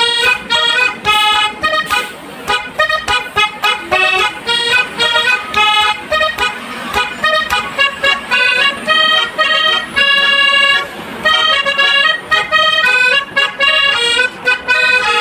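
Bus 'telolet' musical horn playing a fast tune, a run of short horn notes changing pitch several times a second.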